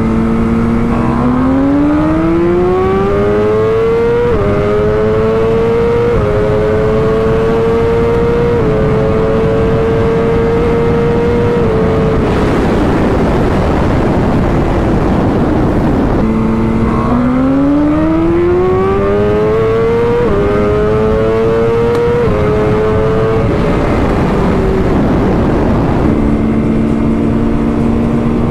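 BMW S1000RR's inline-four engine at full throttle, climbing in pitch through the gears, with a quick drop in pitch at each upshift, then wind rush at high speed. About halfway through a second hard run climbs through the gears the same way, and near the end the engine holds a steady note before starting to climb again.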